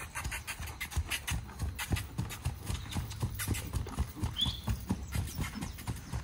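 A ridden horse's hooves beating a quick, even rhythm on grass as the horse is put into its gait.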